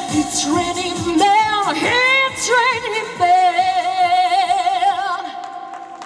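Pop song with a woman singing wavering, drawn-out notes over a steady beat; the music fades away near the end.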